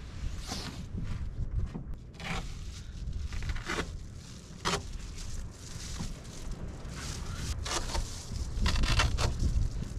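Rustling and scraping as a puffy nylon garment and bedding are handled, with zip-like strokes scattered irregularly through it, over a low rumble.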